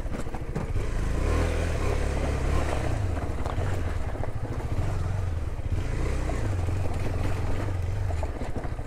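KTM 390 Duke's single-cylinder engine running at low speed on a rough trail, its low note rising and falling a little with the throttle, with the rumble of tyres over loose stones.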